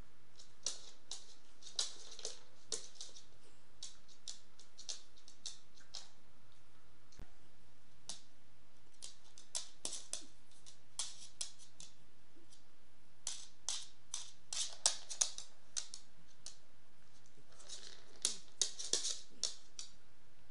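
Small dog's claws clicking and tapping on a hardwood floor as it moves about, in irregular clusters of short sharp clicks.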